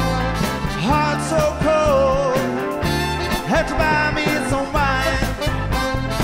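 Background music: a rock song with a steady beat and a sung vocal line.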